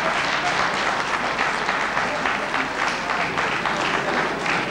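Audience applauding, the clapping thinning out towards the end.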